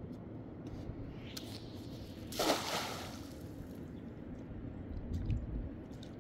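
A splash or slosh of water about two and a half seconds in, over a steady low rumble, with a few faint clicks.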